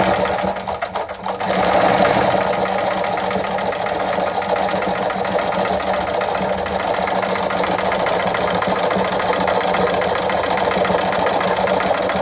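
Straight-stitch sewing machine fitted with a zigzag attachment foot, sewing a zigzag seam at its longest stitch length. A rapid, even clatter of the needle and attachment sits over a steady motor hum. It is uneven for the first second or so, then runs at a constant speed.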